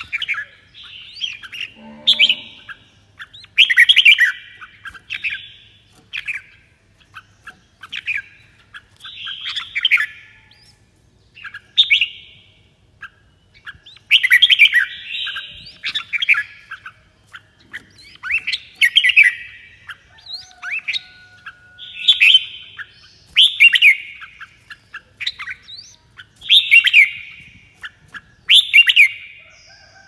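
Red-whiskered bulbul singing: loud, short warbling phrases repeated every second or two.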